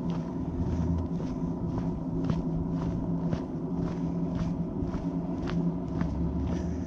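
Footsteps of a hiker walking at a steady pace on a trail, about two steps a second, over a steady low hum.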